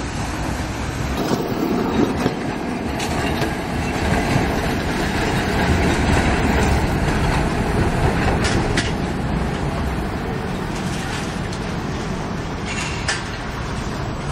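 Trams running on street track amid road traffic: a steady rumble of wheels and motors, with a few sharp clicks from the wheels on the rails.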